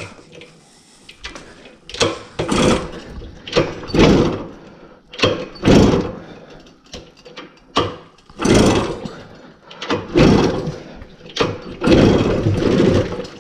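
A Gitane Testi Grand Prix moped's 50cc Minarelli two-stroke engine is turned over by its pedal crank on choke. It gives a string of short, uneven bursts and does not catch, a hard starter.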